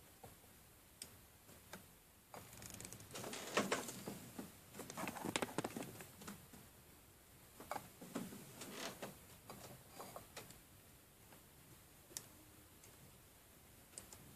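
Hand-turning a small homemade engine built from a refrigerator compressor: scattered light metallic clicks from its moving parts and valve, with a few seconds of louder handling and scraping noise in the middle.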